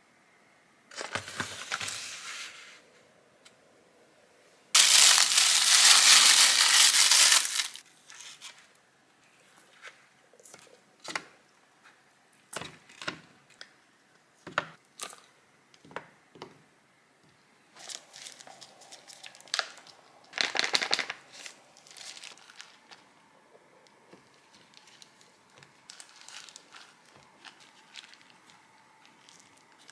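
Two loud rustling noises in the first eight seconds, the second longer, then a run of light taps and clicks as frozen pavé chocolate squares are pushed out of a silicone mold and set down on a plastic tray.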